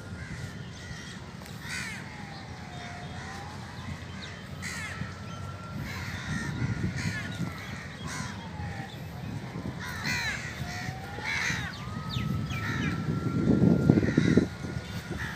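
Crows cawing repeatedly, with a faint tone slowly falling and rising in the background and low rumbling noise that gets louder near the end.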